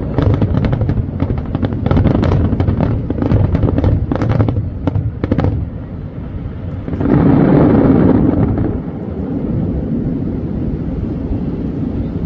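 Fireworks finale: rapid crackling pops over low booms from gold glitter shells, dying away after about five and a half seconds. About seven seconds in, a loud wash of noise lasts under two seconds, then a steady low background remains.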